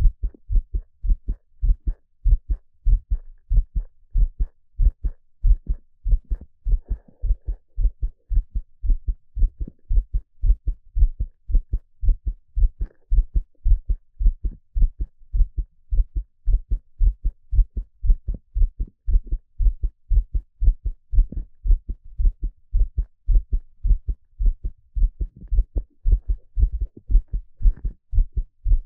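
A man's heartbeat: low thumps in a steady, even rhythm.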